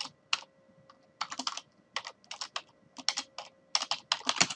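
Typing on a computer keyboard: irregular bursts of quick keystrokes with short pauses between them.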